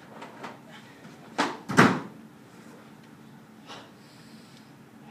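Two sharp snaps, under half a second apart, a little over a second in, from a karateka's fast techniques in a kata: the karate uniform snapping and feet striking the mat.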